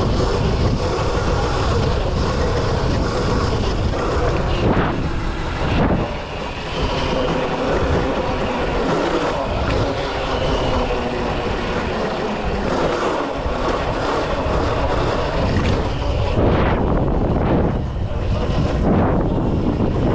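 Wind buffeting the microphone: a loud, steady rumbling roar, with a brief dip about six seconds in.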